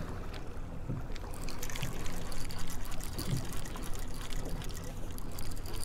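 Water splashing and trickling against a small boat's hull over the low, steady hum of an outboard motor running at trolling speed.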